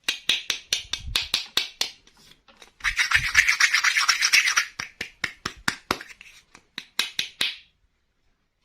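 Hands handling plastic toy pieces and packaging: a quick run of sharp clicks and taps, a dense scraping rustle about three seconds in, then more clicks that stop about a second before the end.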